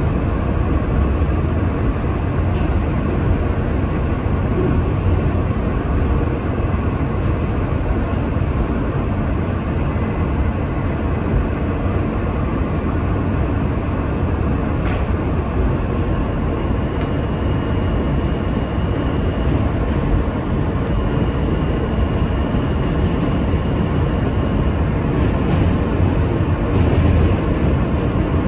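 New York City Subway train running along elevated track, heard from inside the lead car: a steady low rumble of wheels on rail. A faint high whine comes in twice past the halfway point.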